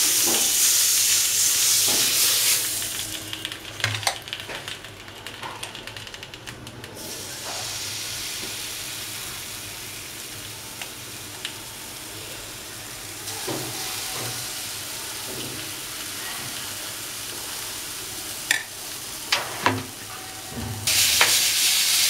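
Hot buttered frying pan sizzling. The sizzle is loud at first, dies down to a steadier, quieter hiss after a few seconds, and grows loud again near the end. A few sharp clicks come shortly before it swells.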